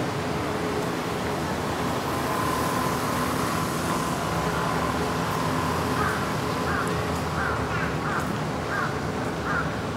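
A crow cawing in a quick series of short calls, about two a second, starting about six seconds in, over steady city traffic noise.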